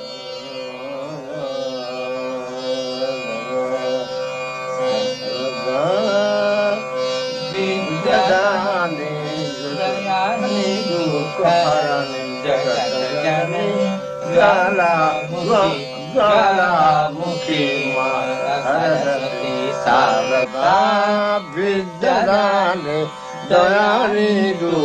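Indian classical raga music: a melody with long sliding and oscillating notes over a steady drone, fading in over the first few seconds.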